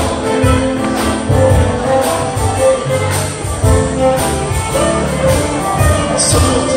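Live contra dance music from a fiddle, keyboard and percussion trio, playing a dance tune with a steady beat and jingling percussion.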